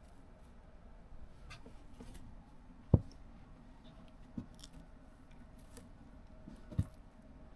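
Three short, dull thumps, the first the loudest, with faint light clicking and rustling in between.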